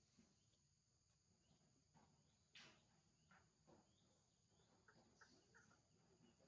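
Near silence with a faint, steady, high-pitched insect drone, a soft scrape or rustle about two and a half seconds in, and a few faint short chirps near the end.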